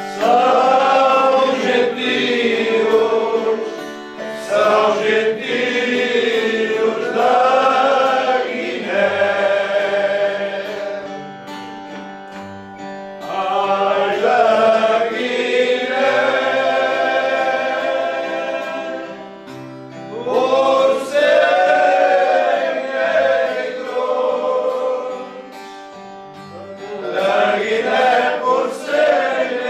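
A group of men singing a song together over plucked guitar accompaniment, in phrases with short breaks between them.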